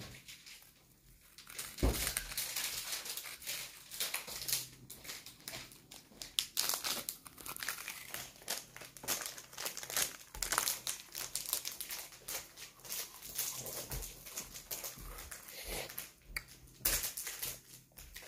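A child biting and chewing a freeze-dried Earth gummy candy: an irregular run of crisp crunching and crackling as the hard, dried jelly breaks up in the mouth, with a short pause about a second in.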